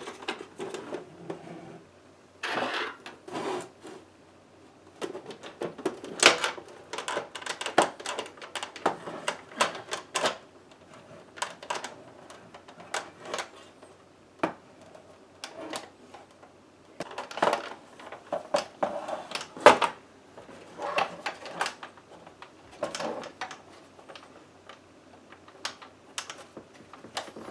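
Hard plastic parts of a toy dashboard clicking and rattling in irregular clusters as it is handled and pried apart.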